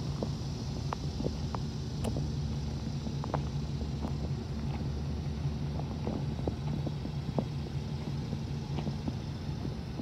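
Ford E-350 Super Duty box truck's engine idling steadily with a low hum, while scattered light ticks sound over it, like footsteps crunching on gravel.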